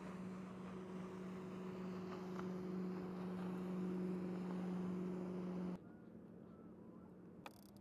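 Boat motor running steadily with a hum, stopping suddenly about six seconds in.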